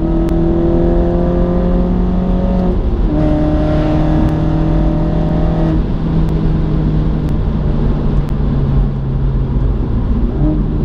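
Mini F56 John Cooper Works turbocharged four-cylinder engine heard from inside the cabin, accelerating with rising pitch through two upshifts about a quarter and halfway through, then holding a steady cruise. Near the end the pitch jumps up in a downshift.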